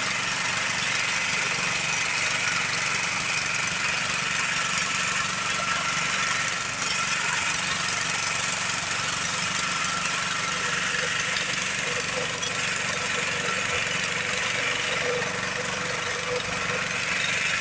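Walk-behind reaper's small engine running steadily as the machine cuts standing wheat.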